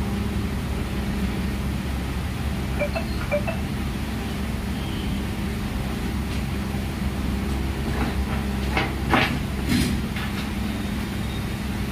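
A steady low machine hum from running workbench equipment, with a few faint clicks about three seconds in and a cluster of light taps and clicks between eight and ten seconds in.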